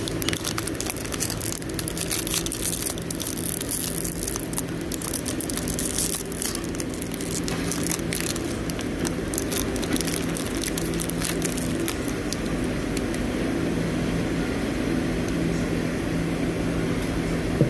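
Metallised plastic snack wrapper crinkling and crackling as it is torn open by hand; the crackle dies away about twelve seconds in. A steady low mechanical hum runs underneath.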